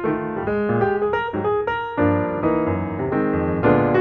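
Piano music with notes played in quick, even succession over chords.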